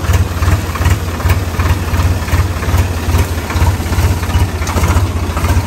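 Mahindra Thar's engine idling with a steady low, rapid throb.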